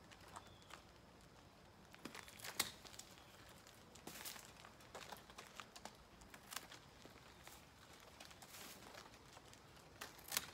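Hand pruners snipping through Australian tree fern fronds, with the leafy fronds rustling and crackling as they are handled. Scattered short snips, the sharpest about two and a half seconds in and near the end.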